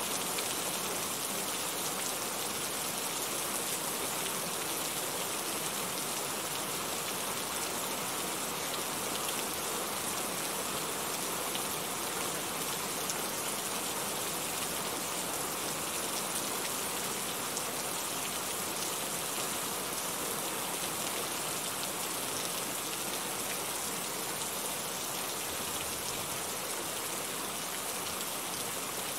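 Steady rain falling: an even, unbroken hiss of rain with a fine patter of drops that does not change in strength.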